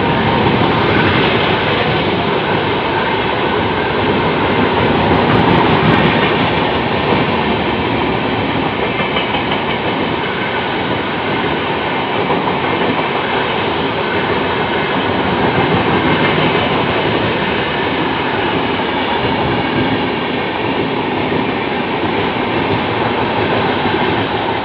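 Express passenger train with LHB coaches running through at full speed: a loud, steady rumble and rattle of wheels and coaches on the track.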